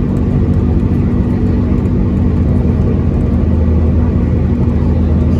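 Steady engine drone and road noise of a moving vehicle, heard from inside it.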